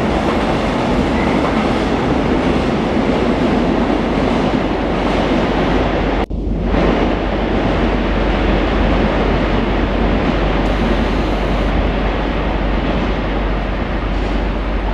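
Freight train of tank wagons rolling past at close range: a loud, steady rumble and rattle of wheels on rails, with one very short drop-out about six seconds in.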